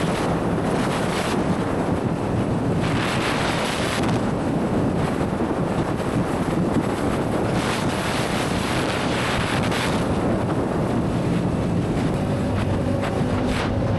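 Wind buffeting the microphone of a Yamaha R7 motorcycle's rider at road speed, over a steady rush of engine and road noise. A low engine hum comes through more clearly near the end.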